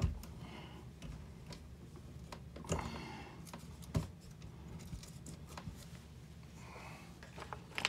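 Light clicks and rustling of hands working copper ground wires in an electrical box, with a few sharper clicks, the clearest about three and four seconds in.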